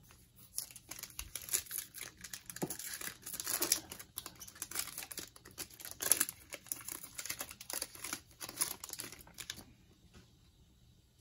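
Football card pack wrapper being torn open and crinkled by hand: an irregular run of crackles and rustles that stops shortly before the end.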